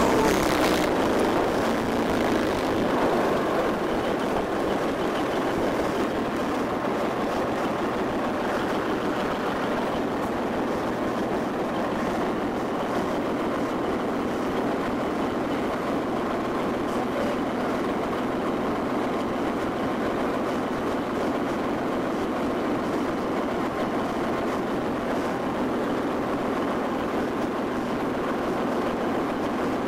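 BVP-1 (Czechoslovak-built BMP-1) infantry fighting vehicle's UTD-20 V6 diesel engine running steadily, heard from the gunner's hatch on top of the hull.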